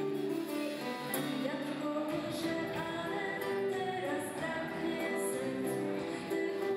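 A woman singing with a live band, electric bass playing under her voice.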